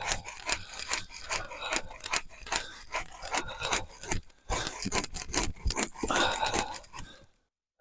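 Hand saw cutting through firewood in quick, repeated back-and-forth strokes, stopping abruptly near the end.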